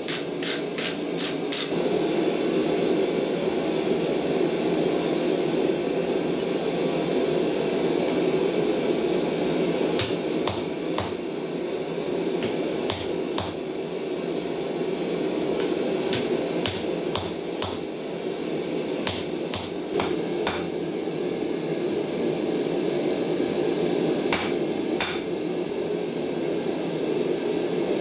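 Hand hammer striking red-hot mild steel on an anvil: a quick run of about five blows at the start, a pause of several seconds, then blows in small groups of two or three. A steady low rushing noise sits underneath.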